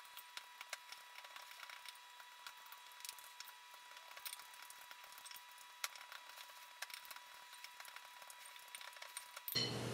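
Faint, irregular clicks and taps of a metal fork mashing cooked black beans against a glass bowl. Near the end the background gets suddenly louder.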